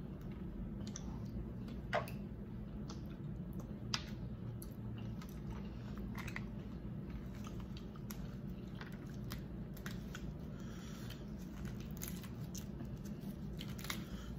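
Cooked crab shells cracking and being picked apart by gloved hands, with wet chewing; sharp cracks about 2 and 4 seconds in and again near the end, over a steady low hum.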